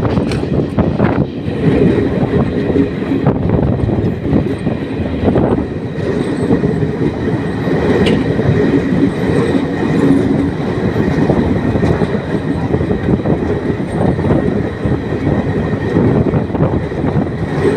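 Express passenger train running at speed, heard from beside an open coach window or door: a steady rumble of the wheels on the rails, with irregular clacks over the track.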